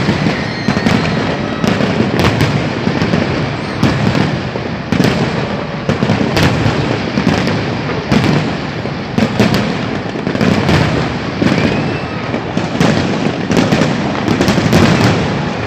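New Year fireworks display: many sharp bangs in quick succession over a continuous, dense rumble of booming explosions.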